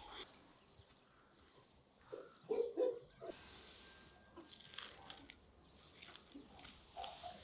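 Crisp, browned skin of a pan-fried chicken tabaka crackling and the meat tearing as it is pulled apart by hand. A few brief, louder handling sounds come a little past two seconds in, then scattered sharp crackles.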